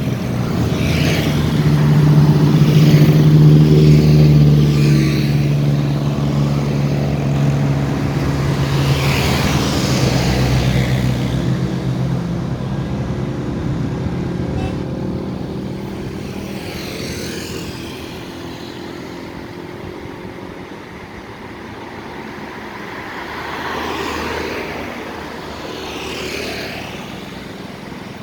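Tour bus engine running close by, loudest a few seconds in and then fading away slowly, with other road traffic passing.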